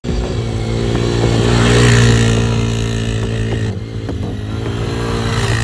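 Small youth ATV (quad bike) engine running steadily as it is ridden along a dirt track, a little louder about two seconds in, with the sound changing abruptly a little past halfway.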